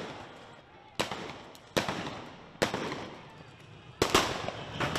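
A series of sharp gunshot bangs in a street clash, about six in all, irregularly spaced and each trailing off in an echo off the surrounding buildings; two come in quick succession near the end.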